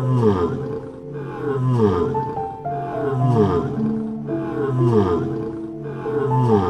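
A tiger giving repeated falling calls, about one every second and a half, over background music with long held notes.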